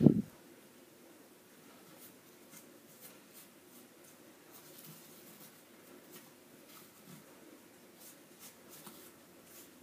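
A short loud low thump at the very start, then faint scratchy rustling and crinkling as fingers handle and work open a small packet of crumbs.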